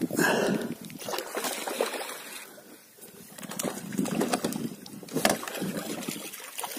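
Water sloshing against a small boat, with irregular swells of noise and a sharp knock about five seconds in.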